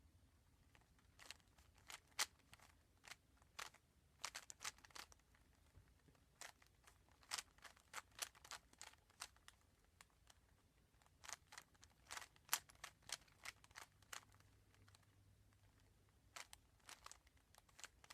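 Plastic layers of a Rubik's speed cube being turned by hand, clicking in quick runs separated by short pauses.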